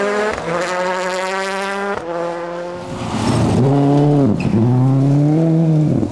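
Two rally cars at full throttle on gravel. First a World Rally Car accelerates, its engine pitch climbing steadily until it stops abruptly about two seconds in. Then a Toyota Corolla WRC's 2.0-litre turbocharged four-cylinder is heard sliding through a gravel corner, its revs dipping sharply and climbing again, with tyres skidding on the loose gravel.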